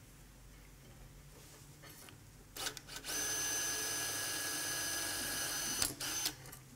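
Surgical power drill with a 3.5 mm bit running steadily for about three seconds with a high whine, drilling a gliding hole in the pelvis for a compression screw. A few clicks come just before it starts and a knock as it stops.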